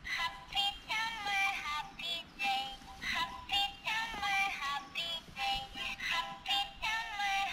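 Built-in sound unit of a PlayTo plush rocking elephant playing its cheerful song, the one it sings when its ear is pressed: a synthetic voice singing a melody of short notes.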